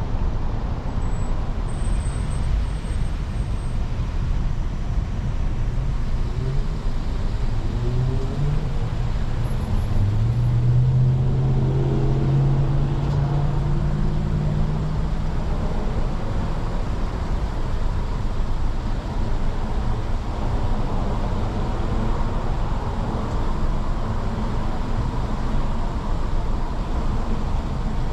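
Car engine and road noise, steady throughout. About a quarter of the way in, an engine note rises in pitch as the vehicle speeds up, holds, then fades a little past halfway.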